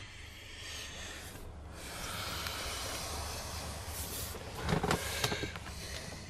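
Handling noise from a handheld camera as its holder moves through a small aircraft cabin: rustling and rubbing that swells after the first second, with a few knocks and bumps about five seconds in, over a steady low hum.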